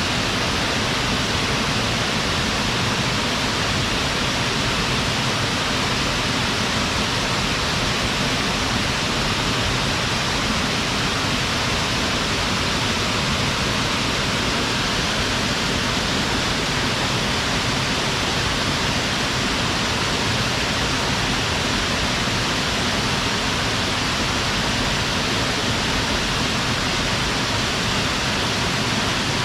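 Waterfall pouring into its pool: a steady, even rush of falling water, strongest in the upper middle range, with no change throughout.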